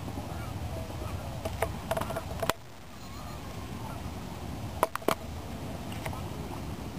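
Waterfowl, most likely geese, honking faintly over a steady low rumble of wind on the microphone. There are a few sharp clicks, one about two and a half seconds in and two close together around five seconds.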